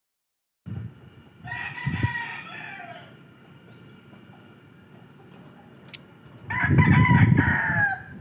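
Two long, drawn-out bird calls, each about a second and a half, the first about a second and a half in and the second near the end, with a low rumble under the second.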